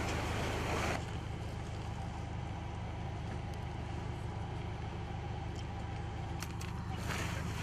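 An engine idling steadily with a low hum. A rustling noise fills about the first second, and a few faint clicks come near the end.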